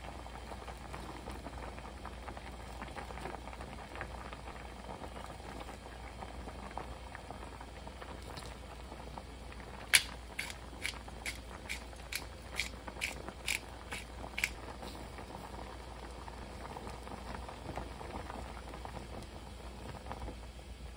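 Blue crab doenjang stew bubbling at a steady rolling boil in a stainless steel pot. About halfway through comes a run of about ten sharp clicks over four seconds, the first the loudest.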